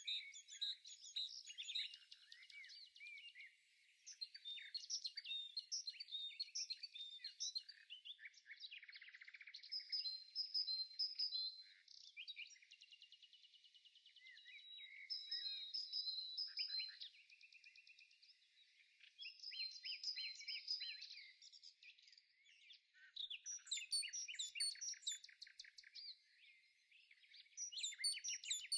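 Songbirds singing: phrases of quick chirps and trills following one another, with short lulls between them.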